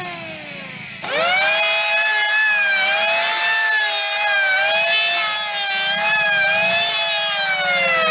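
Electric hand planer motor whining down in pitch, then switched on again about a second in: the whine rises quickly to full speed and runs steadily, dipping briefly in pitch several times as the blades bite into a wooden board.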